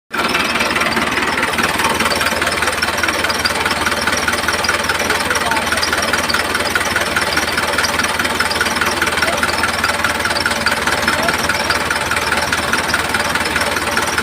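Small motor of a homemade toy tractor running steadily with a fast, even rattling buzz.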